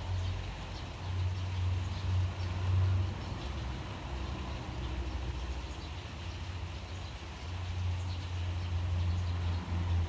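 Rain falling steadily, with scattered drop ticks, over a low rumble that swells and eases every few seconds and is the loudest thing.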